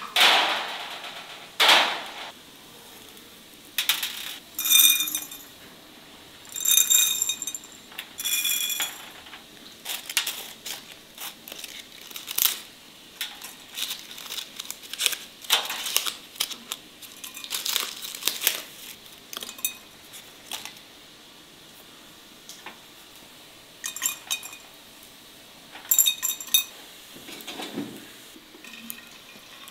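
Empty glass bottles clinking and knocking as they are handled and set down, several of the clinks ringing briefly, among soft rustling and handling noises.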